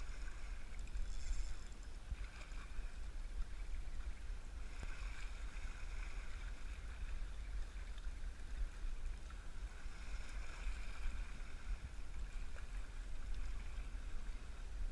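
Wind rumbling on the microphone, with small waves lapping and hissing against a rocky shore that swell and ease a few times.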